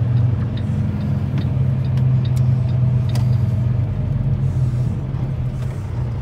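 Semi-truck diesel engine running steadily as the rig rolls slowly, easing off slightly toward the end.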